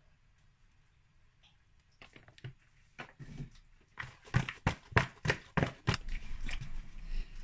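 Hands tossing oiled, spice-rubbed raw chicken drumsticks in a plastic bowl: wet squelching and slapping, with a quick run of sharp slaps about four to six seconds in.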